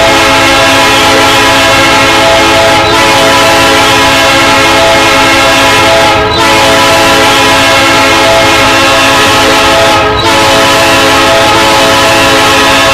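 Multi-chime air horn of a Canadian Pacific EMD SD60 locomotive being test-sounded. It holds a loud, steady chord almost without break, dipping briefly about three, six and ten seconds in.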